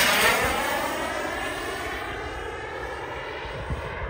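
Turbine engine of a radio-control model F-16 jet passing close overhead. The pitch drops as it goes by: loudest at the start, then fading as the jet flies away.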